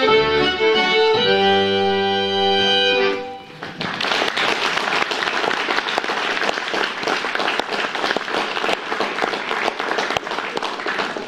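Fiddle and two button accordions end a waltz on a long held chord, which cuts off about three seconds in. Audience applause follows and continues to the end.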